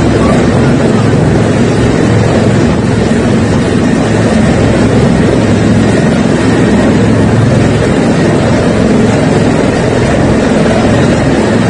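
Helicopter hovering low overhead, its rotor and turbine running loud and steady, over the rushing of fast-flowing muddy floodwater.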